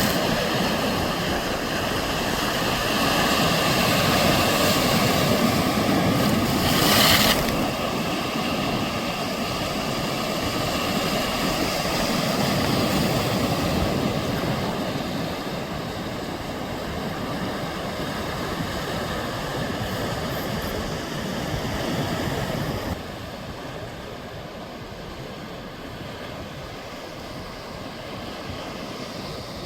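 Sea surf washing on the shore, a steady rushing noise that swells and eases, with a brief louder burst about seven seconds in. The sound drops suddenly to a quieter level near the end.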